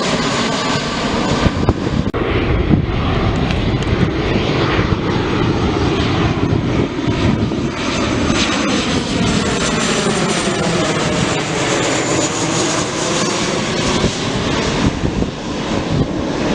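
Airliner's engines passing close by, a loud steady rush with a sweeping pitch pattern around the middle of the pass.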